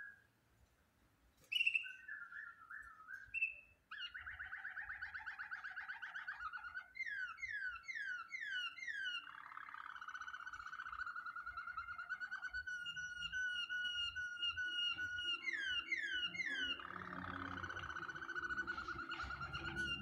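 Domestic canary singing a long, varied song: rolling trills and runs of quick falling notes, broken by short pauses at first and then nearly continuous.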